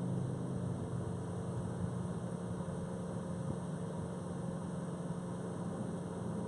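Engine idling steadily: an even, low hum that does not rise or fall.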